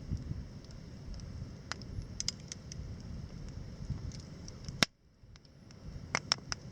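Wood campfire crackling: a steady low rumble with scattered sharp pops, the loudest about five seconds in, after which the rumble briefly drops away.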